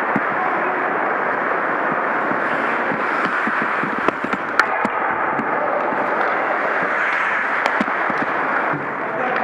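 Ice hockey play on a rink: a steady wash of skates scraping the ice, broken by a few sharp clacks of sticks and puck, the loudest about four and a half seconds in.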